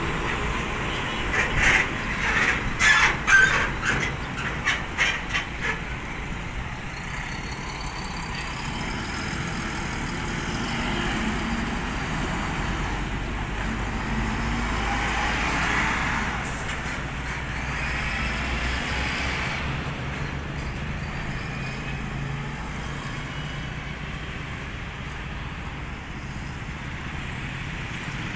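Container truck, a semi-trailer tractor hauling a shipping container, pulling away with its diesel engine running, with a quick run of sharp knocks and clanks in the first few seconds. Then steady road traffic: tyre and engine noise of cars and vans passing, swelling twice past the middle.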